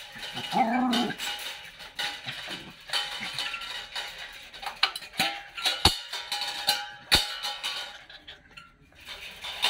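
Metal clinks and rattles from a wire dog crate and its steel bowls as small dogs shift about inside, with two sharp knocks about six and seven seconds in. A short pitched call comes under a second in.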